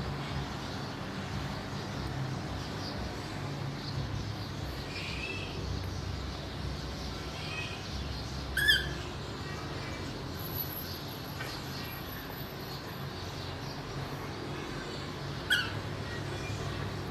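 Pet parrot giving two short, sharp squawks, one about halfway through and one near the end, with a few soft chirps before them, over a steady low background hum.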